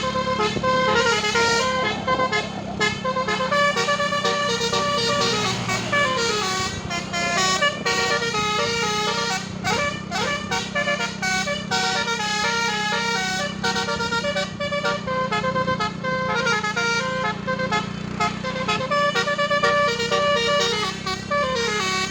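Basuri multi-tone 'telolet' bus horn playing a fast melody of stepped notes, with some gliding runs, over a steady low drone.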